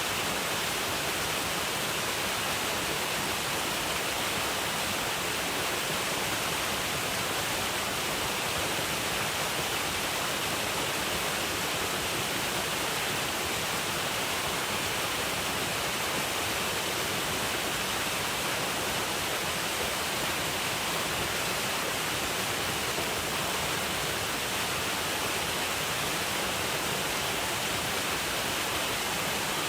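Waterfall: water pouring and splashing in a steady, unbroken rush with a bright hiss.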